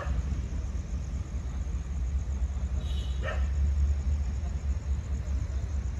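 Steady low rumble of the stationary diesel train idling, with a dog giving short barks at the start and about three seconds in.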